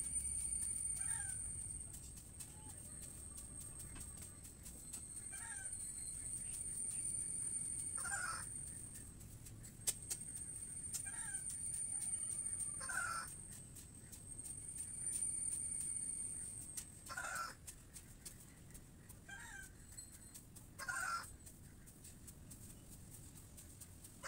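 Birds calling, short harsh calls every few seconds, over a high-pitched insect buzz that swells and breaks off in spells of a couple of seconds.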